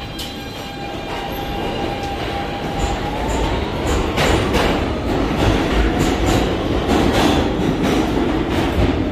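New York City subway train running along the rails in an underground station. A steady whine rises slightly in pitch about three seconds in. The train then grows louder, with repeated clicks of wheels over rail joints, and the sound stops abruptly at the end.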